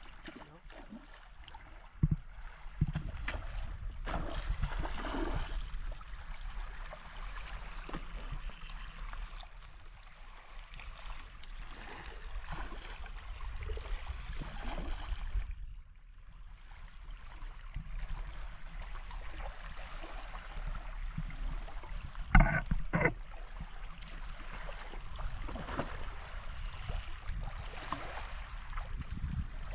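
River water flowing and gurgling over a steady low rumble. A few sharp knocks break through, the loudest a pair about two-thirds of the way through.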